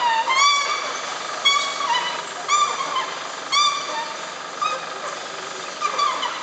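Screeching from fibre-optic cable installation work: a short, high-pitched rising squeal repeating about once a second.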